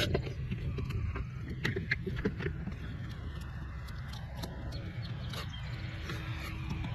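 Light plastic clicks and scraping as push-pin clips are pressed back into a car's plastic wheel-well liner, mostly in the first few seconds, over a steady low outdoor rumble; a faint steady tone comes in near the end.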